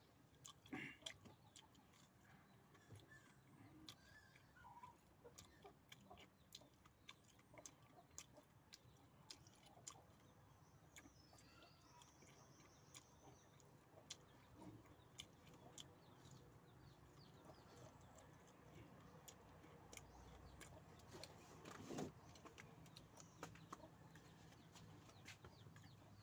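Near silence with faint scattered clicks of food being handled and eaten, and faint bird calls in the background near the middle.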